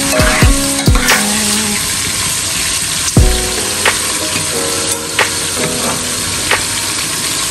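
Sliced red onions frying in oil in an aluminium pot: a steady sizzle with scattered pops. A metal spoon stirs and knocks against the pot at the start, and a few dull thumps come through, the loudest about three seconds in.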